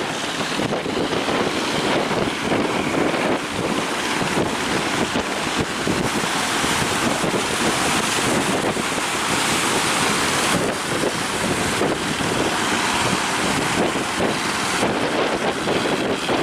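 Heavy sea surf crashing and washing continuously, with strong wind buffeting the microphone.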